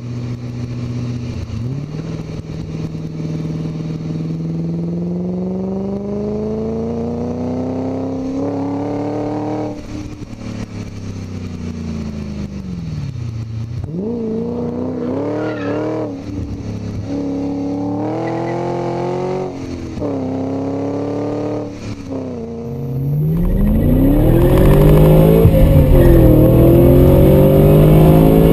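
BMW E30 engine and exhaust under way. The revs climb through the gears, and the pitch falls away at each shift and when the throttle is lifted. About 23 seconds in it changes to a louder run heard from inside the cabin, the engine pulling hard above 6,000 rpm.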